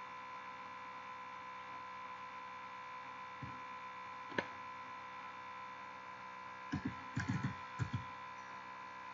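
Steady electrical hum with several fixed tones, from the recording setup. One sharp click comes about four and a half seconds in, then near the end a quick run of soft computer-keyboard key taps as digits are typed into a calculator.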